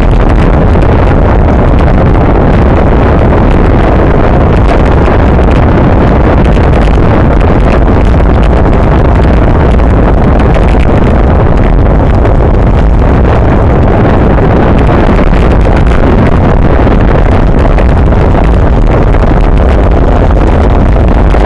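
Wind buffeting the microphone of a camera mounted on a racing bicycle moving at speed in a pack, a loud, steady rumble with road vibration mixed in.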